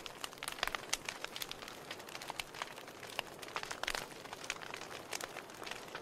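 Wood logs burning in a fireplace, crackling with many irregular sharp pops over a soft steady hiss.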